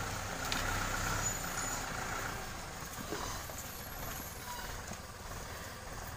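Farm tractor's diesel engine running as it pulls a trailer, a steady low hum that eases off after about two seconds.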